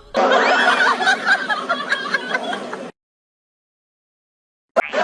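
Several people laughing together, cutting off abruptly about three seconds in; then dead silence broken near the end by a sharp click.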